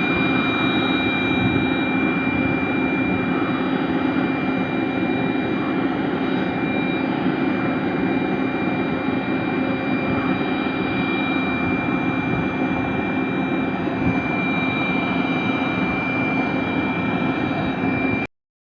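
Small electric blower motor running steadily: an even rush of air with a steady high whine over it, cutting off abruptly near the end.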